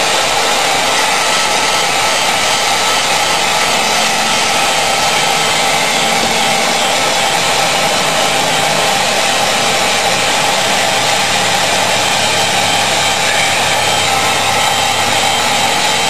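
Electric heat gun running steadily, a constant rush of blown air, as it heats PVC pipe to soften it for bending.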